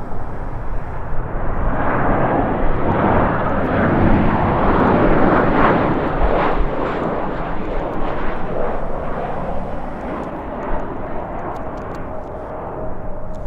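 Jet airliner passing, its engine noise swelling to a peak a few seconds in and then fading away, with a faint steady whine near the end. Gusting wind rumbles on the microphone.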